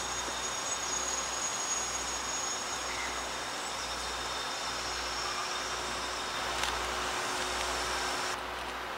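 Distant steam-hauled passenger train, the C58 steam locomotive and its coaches, running slowly with a steady rumble and hiss. A steady high trill runs through it, and the high part drops away near the end.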